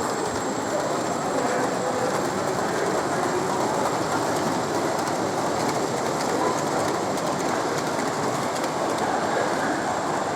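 Model train running on an exhibition layout, its wheels clicking lightly over the rail joints against a steady background hum.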